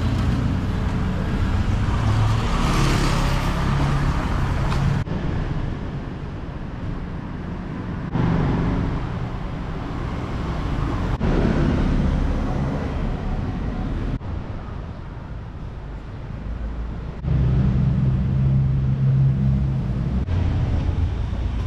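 City street traffic: car engines running and passing. The sound comes in several short takes that change abruptly every few seconds.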